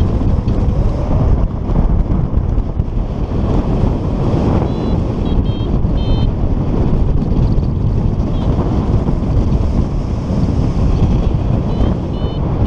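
Wind rushing over the microphone of a paraglider in flight, steady and loud. A couple of short series of high electronic beeps from a flight variometer come through about five seconds in and again near the end, the beeping that signals the glider climbing in lift.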